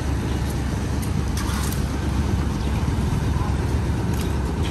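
Idling truck engine, a steady low rumble, with a few short clinks and clatters over it.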